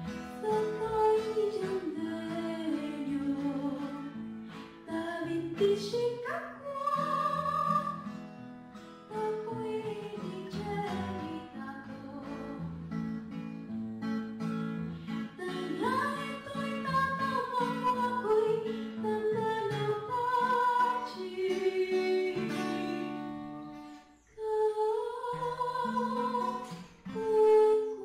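Music with plucked acoustic guitar and a singing voice carrying a gliding melody.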